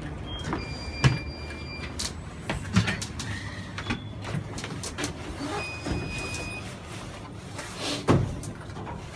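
Passengers boarding a suburban electric train: footsteps and a few sharp knocks over the carriage's steady low hum, with two long high beeps, typical of the train's door warning.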